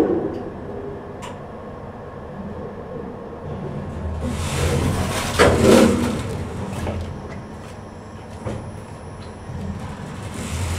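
Lift running with a steady low hum. About four seconds in, a rush of noise rises as the lift doors slide open, with two sharp knocks in it.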